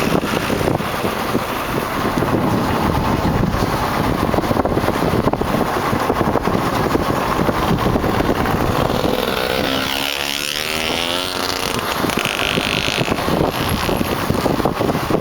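Kawasaki KLX dirt bike coasting with its engine off: a steady rush of wind on the microphone and tyre noise. About ten seconds in, the noise sweeps up and down as another vehicle passes.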